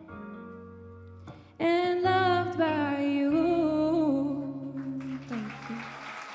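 Worship song with an instrumental backing track of sustained chords, then a woman's voice enters about a second and a half in and holds one long note with vibrato, ending in a falling slide. Near the end a steady hiss of noise follows, which fits the congregation starting to applaud.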